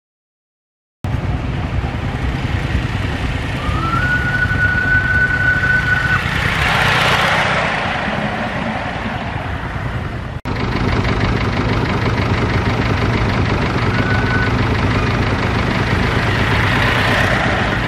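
Miniature ride-on steam railway train running past on its track, swelling louder twice as the cars and engine pass close by. The small steam locomotive's whistle is held for about two seconds, about four seconds in, with a short toot later on.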